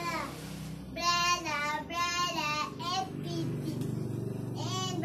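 Young child singing a wordless, high-pitched sing-song tune in short phrases, with a pause of about a second and a half before a last phrase near the end.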